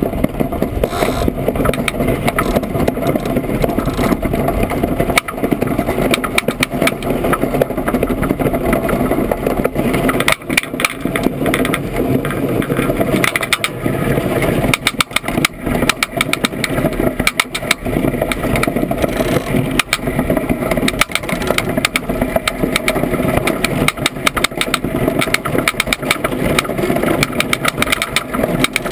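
Iceboat under sail at speed: its runners rumble over the lake ice, mixed with wind noise and a constant run of sharp rattling clicks.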